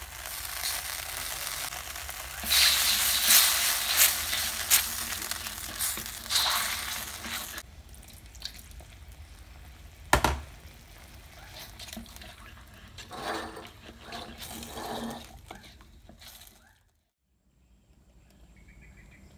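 Oyster sauce and liquid sizzling in a hot wok while being stirred with a wooden spatula, loudest in the first seven seconds or so, with one sharp knock of the spatula on the wok about ten seconds in and softer scraping later; it cuts off suddenly near the end.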